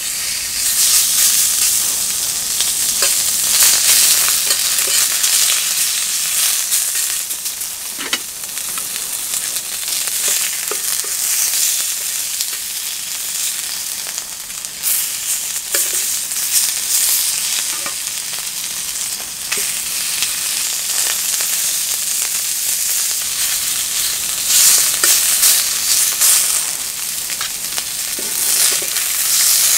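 Beef and green onion pieces sizzling in a carbon steel frying pan, a steady hiss of frying. A few light clicks come from tongs touching the pan as the meat is laid in and turned.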